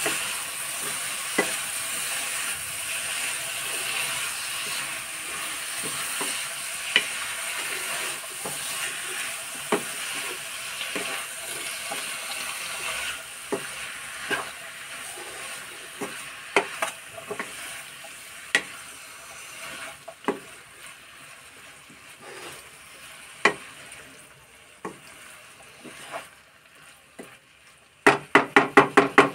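Food frying in a metal kadai while a spatula stirs it: a steady sizzle that slowly dies down, with scattered clicks of the spatula against the pan. Near the end comes a quick run of loud knocks, several a second.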